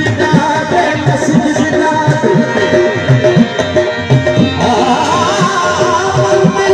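Sindhi folk song accompaniment: tabla playing a fast, dense pattern under steady held notes. A wavering melody joins about four and a half seconds in.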